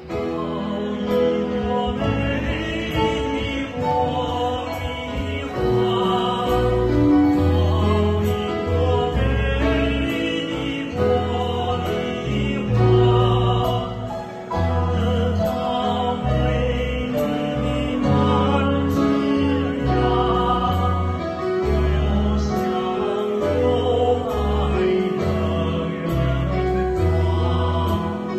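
A man and a woman singing a duet into microphones, backed by a live band with steady bass notes under the voices.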